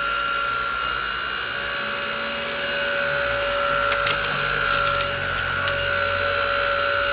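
Deik cordless stick vacuum running steadily with a high motor whine, and a few sharp clicks partway through.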